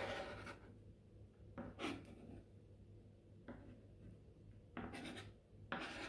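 A knife blade and hand scraping diced onion across a cutting board, sweeping the pieces into a pile: five short scrapes, one of them faint.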